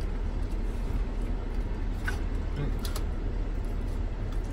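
Steady low rumble inside a parked minivan's cabin, its engine idling, with a few small clicks.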